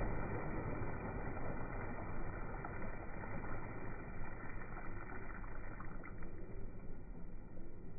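Pond water churning and splashing where swimmers have plunged in and are moving under the surface, easing off after about six seconds.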